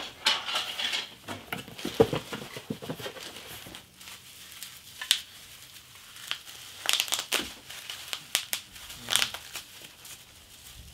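Plastic wrapping being crinkled and crumpled by hand as a toy piece is unwrapped, in irregular bursts of crackling.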